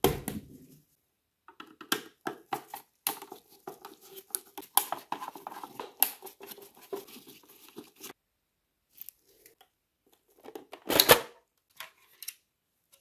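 Hard plastic clicking and scraping as a BMW E46 instrument cluster is taken apart: a small screwdriver working screws out of the back of the housing, with a run of quick clicks, then one loud sharp crack near the end as the housing is unclipped from the gauge face.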